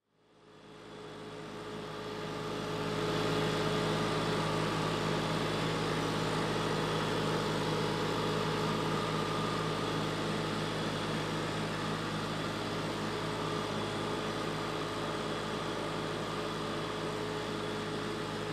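Mobile roll-packer waste compactor running steadily as it manoeuvres on its wheels: an even engine and drive hum with a few steady tones. It fades in over the first couple of seconds.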